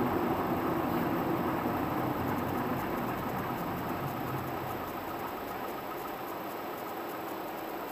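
Car engine and road noise heard from inside the cabin, a steady rumble that fades gradually as the car slows to a stop and settles toward idle.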